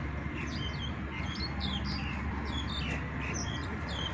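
Small birds chirping busily, many short high chirps overlapping a few times a second, over a steady low background hum.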